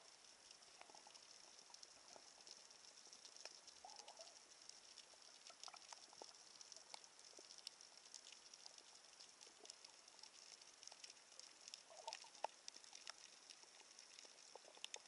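Faint underwater ambience: a steady light hiss sprinkled with many small scattered clicks and crackles.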